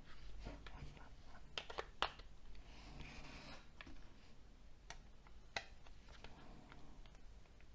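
Faint, scattered clicks and light rustling from a Nokia C6-00 smartphone's small plastic parts being handled and fitted together, with a few sharper clicks about two seconds in and again past five seconds.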